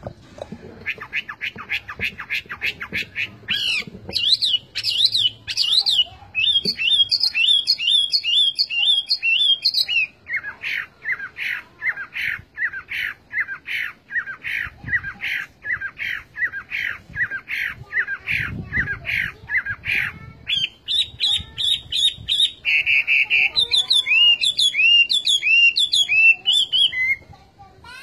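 Chinese hwamei singing a loud, varied song of quickly repeated whistled notes, switching to a new phrase every few seconds. The phrases include runs of down-slurred whistles and rising-and-falling notes. The song breaks off just before the end.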